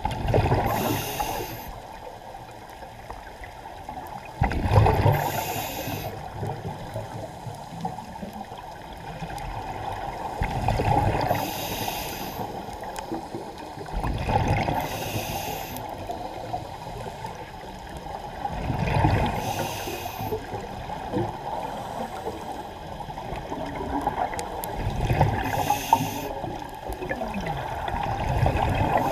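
Scuba diver breathing through a regulator underwater: a hiss on the inhale and a rush of exhaled bubbles, repeating every five or six seconds.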